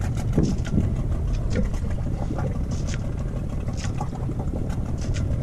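Sailboat's auxiliary engine idling steadily out of gear, a low even rumble, while the boat settles on its anchor.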